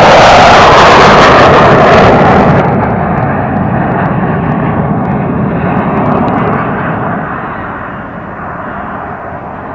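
Aircraft flying past low and very loud: a heavy roar that starts abruptly, is loudest for the first couple of seconds, then thins and fades slowly as it moves away.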